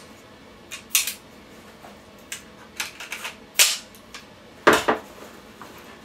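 Handgun and magazines being handled and packed into a sling bag: about ten sharp, irregular clicks and clacks, the loudest a little past halfway.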